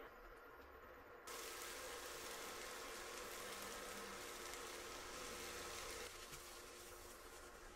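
Faint sizzling of diced chicken, corn, black beans and poblano pepper frying in a skillet, starting abruptly about a second in and thinning out after about six seconds.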